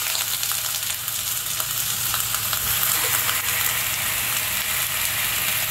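Lamb shanks sizzling in hot oil in an enamelled pan as they are laid in to sear: a steady frying hiss with light crackles.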